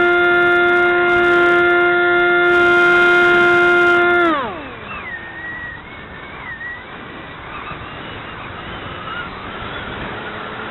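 Model aircraft's motor and propeller, heard from on board, running at a steady high pitch. A little over four seconds in the throttle is cut and the pitch drops away, leaving wind rushing past as the plane glides down.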